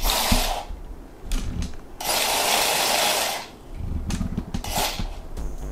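Virhuck DIY robot ladybug's small motor and gearbox whirring as its legs scuttle across a tabletop, in three remote-controlled bursts: a short one at the start, a longer one of about a second and a half in the middle, and a short one near the end, with rapid clicking of the legs between them.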